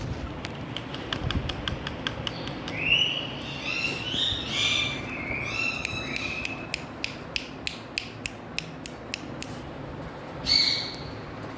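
Indian ringneck parrot giving a string of short chirping calls a few seconds in and one more call near the end, among a run of sharp clicks that settles into about three a second in the second half.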